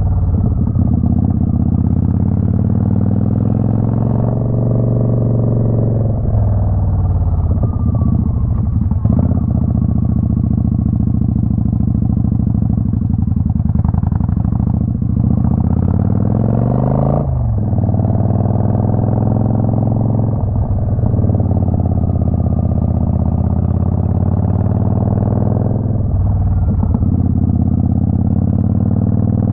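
Twin-cylinder motorcycle engine running on the road, its pitch climbing under throttle and dropping sharply at several gear changes.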